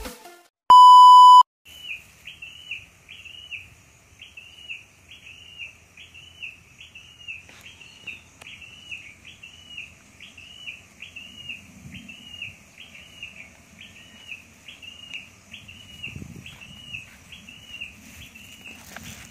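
A single loud, steady beep under a second long near the start, then a bird calling over and over, a short hooked note about twice a second, with a faint steady high hiss behind it.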